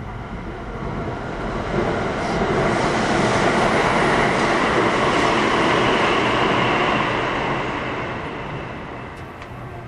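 Another train passing through the station at speed beside a stopped train. Its rumble and wheel noise swell over the first couple of seconds, hold loud for about four seconds, then fade away.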